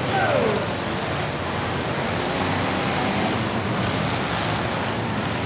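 Steady din of a pack of race cars and pickup trucks running around the track, their engines blending into an even rush of noise.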